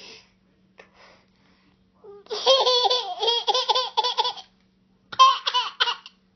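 A young child laughing: a long run of quick, high laughs starting about two seconds in, then a shorter burst near the end.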